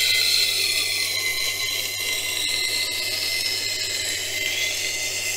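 Knife blade being ground on the turning wheel of a wet grinder: a steady high scraping hiss with a few high tones, over the low hum of the grinder's motor.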